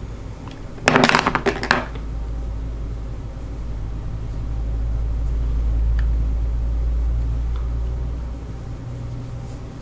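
A brief rattling clatter of small hard makeup containers being handled about a second in, followed by a low rumble that swells and fades.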